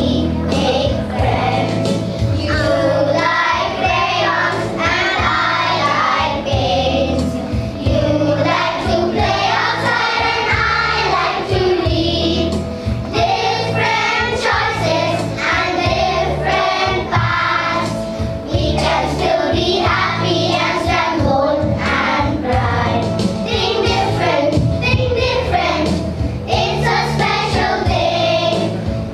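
A children's choir singing a song in unison over a backing track with a bass line and a steady beat.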